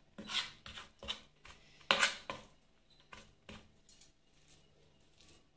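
A metal spoon clinking and scraping against a metal plate as it presses and levels soft coconut burfi mixture, in a string of short, uneven knocks, the loudest about two seconds in.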